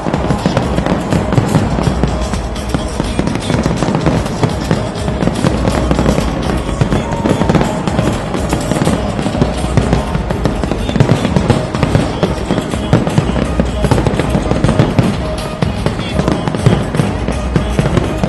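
Fireworks display: a continuous, dense run of bangs and crackles from aerial shells bursting overhead, mixed with music.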